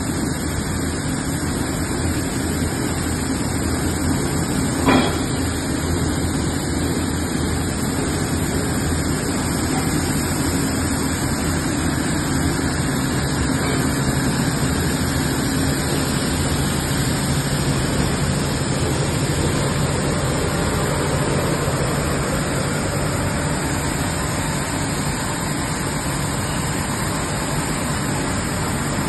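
Tetra Pak aluminium-film pelletizing line running: steady machinery noise with a low hum from the conveyor, feeder and vibrating screen. A single sharp knock sounds about five seconds in.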